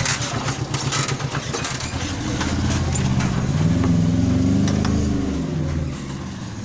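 A passing motor vehicle's engine running, its pitch bending up and down, loudest about four seconds in and fading near the end, with a few light clicks in the first seconds.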